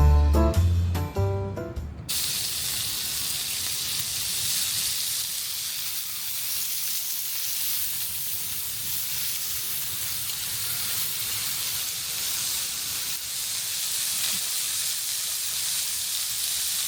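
A steady, even hiss after background music stops about two seconds in.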